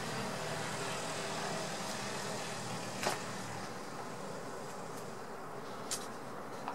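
Clear plastic album sleeves crackling as a banknote album page is turned, with one sharp crackle about three seconds in and a lighter click near the end, over steady background noise.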